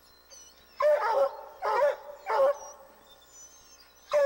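Treeing Walker hounds barking at a treed mountain lion: three loud barks in quick succession about a second in, and another starting at the very end.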